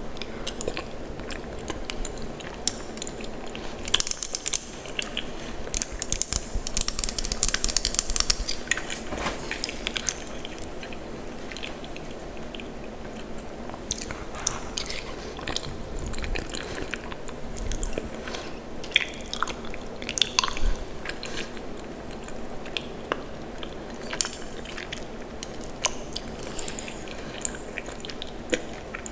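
Close-miked eating of cheesy macaroni and cheese: wet chewing and mouth clicks, coming in clusters with short lulls between them.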